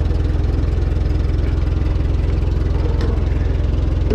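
1947 Ford 8N tractor's four-cylinder flathead engine idling steadily, running again after sitting for more than a year.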